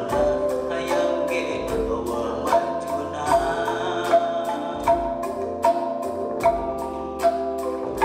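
Live ensemble music: bamboo calung renteng struck with mallets over bass guitar, keyboard and drums, with held notes and a regular beat about every 0.8 seconds.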